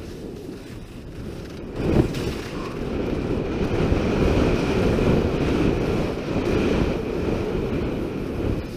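Wind buffeting the microphone of a skier's body-worn camera during a downhill run, with the steady hiss and scrape of skis sliding over heavy, crusted snow. There is a louder surge about two seconds in.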